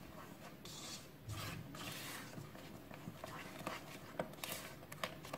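Faint scraping and swishing of a spatula stirring cake batter in a stainless steel bowl, with a few light taps against the bowl near the end.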